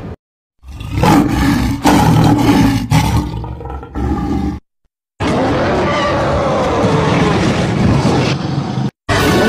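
Dubbed creature roars and growls standing in for the voice of Inostrancevia, a gorgonopsid. They come in two stretches: a choppy first one starting about half a second in, then, after a short silence near the middle, a longer unbroken growl that wavers in pitch and cuts off just before the end.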